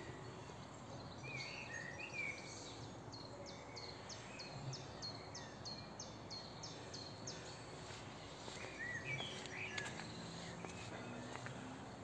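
Faint songbird song over quiet outdoor background noise: a few short chirps near the start and again near the end, and in the middle a run of about a dozen quick high notes, some three a second.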